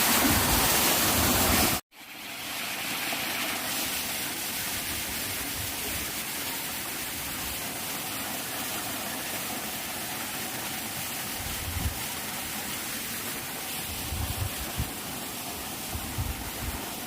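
Waterfall's rushing water, a steady noise; it cuts off abruptly about two seconds in and comes back quieter, with a few low thumps near the end.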